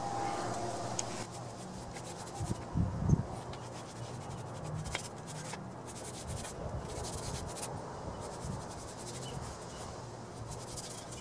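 Paintbrush scrubbing water-based rust converter onto rusty steel square tubing, its bristles rubbing and scratching over the metal, with a few knocks about three seconds in. Insects chirr in the background.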